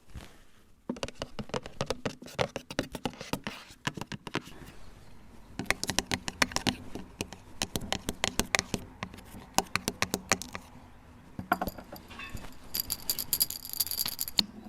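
Fingers tapping and handling small hard objects from a display cabinet, such as gifts and building blocks, as ASMR triggers. The sound is a quick, irregular run of sharp clicks and taps, with a denser rattle near the end.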